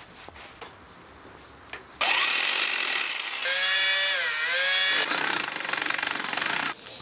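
Power drill driving in the screws of a pit bike engine's flywheel side cover, starting about two seconds in after a few light clicks. Its motor whine dips in pitch midway as it loads up, then recovers, and it stops just before the end.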